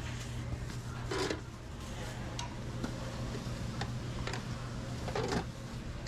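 Restaurant kitchen clatter: sharp knocks and clinks of kitchenware, the loudest about a second in and again near the end, over a steady low hum.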